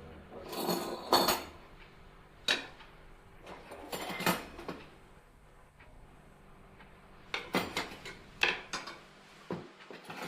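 Spoons and dishes clinking, a string of separate sharp clinks and knocks in several clusters: tableware being handled as the borscht is served at the table.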